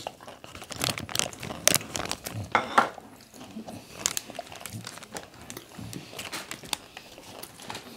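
Plastic ice cream wrapper crinkling and rustling in irregular crackles as it is handled and opened.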